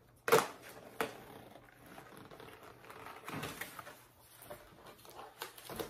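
Cardboard advent calendar boxes and the small packaged items inside being handled: a sharp tap about a quarter second in, a lighter one about a second in, then scattered soft clicks and rustles.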